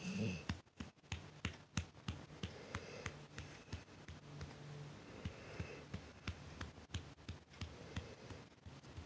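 Irregular small clicks and rustling from a hand stroking a sleeping dog's belly, with the dog's slow breaths about every two and a half seconds.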